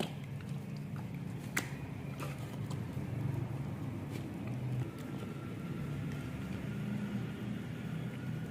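A steady low rumble with a few sharp clicks and knocks over it, and a faint thin tone joining about halfway through.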